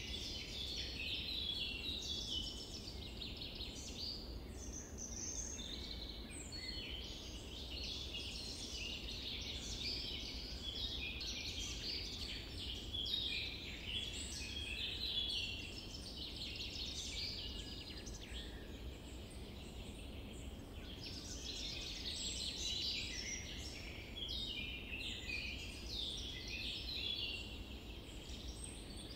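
Forest ambience: a dense, continuous chorus of small birds chirping and twittering, over a low steady rumble.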